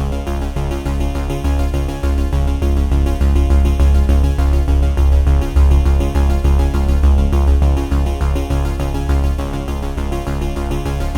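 Electronic background music with synthesizer chords over a heavy, pulsing bass beat.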